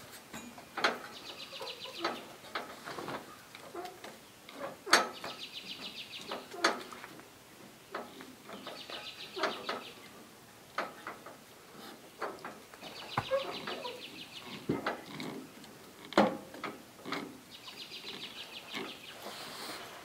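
Scattered metal clinks and knocks of a wrench and pulley parts as a V-belt is worked over the PTO clutch pulley. A short, high, rapidly pulsed chirping trill repeats about every four seconds.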